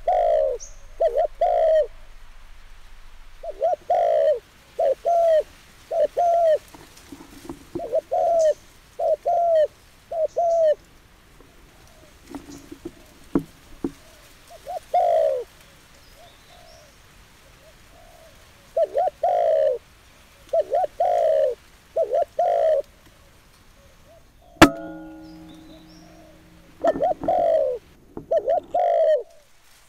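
Dove cooing in repeated short runs of two to four low, arching coos. About two thirds of the way through, a single sharp crack of a PCP air rifle firing is the loudest sound, and the cooing picks up again shortly after.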